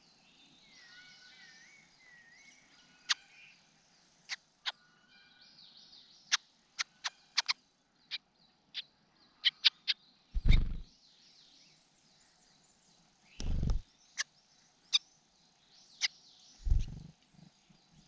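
Wild birds singing faintly in the background, broken by a run of sharp clicks and three short low thumps a few seconds apart, the loudest thump about ten seconds in.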